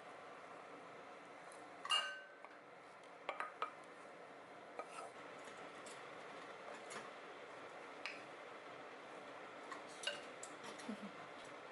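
Kitchenware clinking during cooking: dishes and utensils knocking together in a dozen or so short, scattered clinks, the loudest about two seconds in, over a faint steady background hiss.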